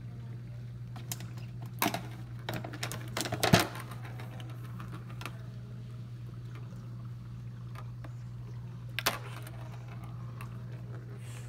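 Petstages Nature Track cat toy being batted by a cat: the ball and paws click and clatter against the clear plastic track in a quick run of taps about two to four seconds in, and again briefly near the end, over a steady low hum.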